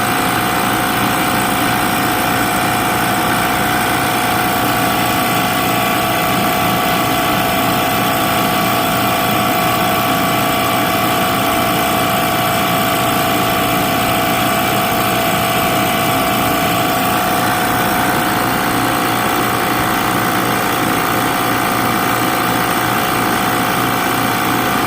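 JB F6 refrigerant recovery machine running steadily, pumping refrigerant out of the AC system into the recovery cylinder. An even, unchanging motor-and-compressor hum.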